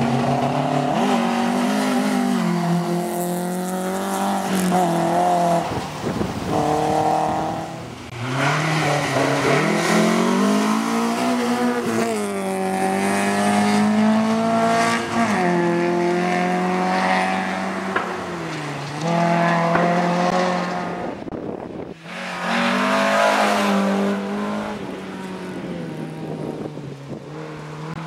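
Rally car engines at full throttle on a gravel stage, their pitch climbing and dropping again and again with gear changes and lifts as the cars pass one after another.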